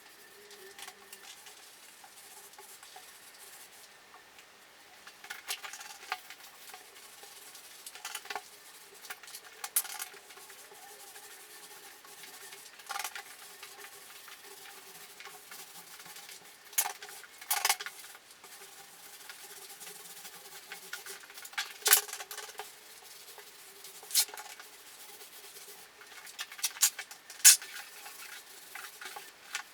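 Paint roller being worked over a wall, a soft sticky rolling hiss, with sharp clicks and taps scattered irregularly through it.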